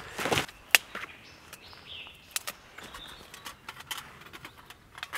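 Dry dead fir branches set down on leaf litter with a brief rustling clatter, then a sharp snap just under a second in. After that come a few light clicks and short scrapes as the folding titanium Bushbox wood stove is handled.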